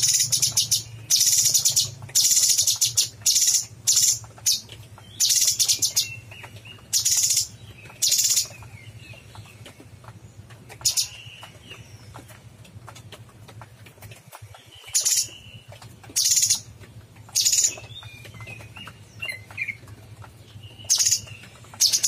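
Caged leafbird (cucak cungkok) giving a run of short, harsh, high calls. The calls come in quick succession for the first several seconds, then more sparsely.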